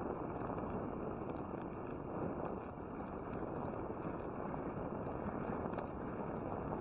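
Bicycle rolling along a smooth asphalt road, heard from a bike-mounted camera: a steady rush of tyre and wind noise with faint, scattered light ticks.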